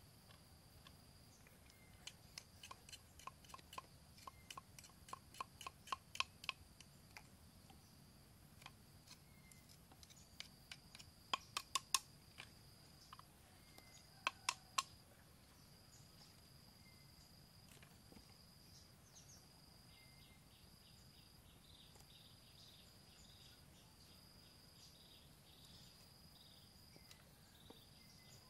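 Faint insect trilling that comes and goes, turning into a rapid pulsing chirp in the second half. Over it come runs of sharp clicks and taps, loudest in two short clusters around the middle.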